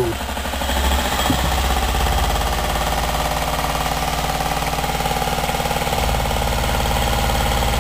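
Pressurized rhombic-drive Stirling engine running off load at about 1,100 RPM: a loud, fast, steady mechanical beat, getting a little louder about a second in.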